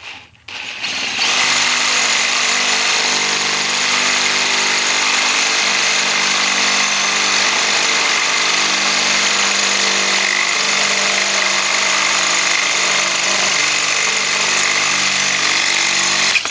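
Electric drill running steadily at one speed as it bores a hole through a bicycle frame, spinning up about half a second in and cutting off suddenly at the end.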